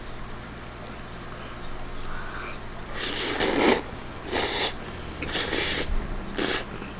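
A person slurping spaghetti noodles with meat sauce into the mouth: four noisy slurps starting about three seconds in, the first the longest and loudest.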